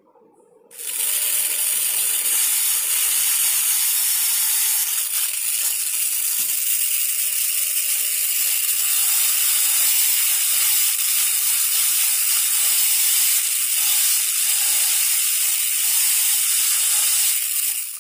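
High-speed air-turbine dental handpiece starting up about a second in and running with a loud, high-pitched hiss as its bur grinds the palatal surface of a typodont premolar for a crown preparation, cutting off at the very end.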